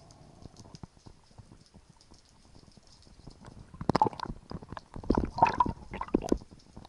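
Knocking and rattling of a spear shaft being handled and hauled in underwater with a speared fish on it, heard as irregular clusters of sharp knocks from about four seconds in, muffled by the water.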